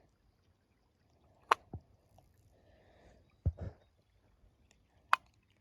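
A few sharp clicks and a low double knock over a quiet background: handling noises.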